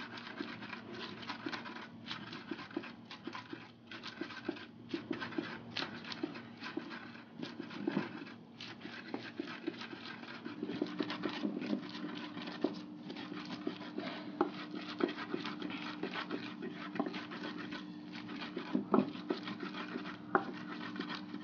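A wooden pestle grinding and crushing chopped onions, garlic and peppers in an earthenware asanka grinding bowl: quick, irregular scraping and clicking against the clay, with a steady low hum underneath that shifts up slightly about halfway through.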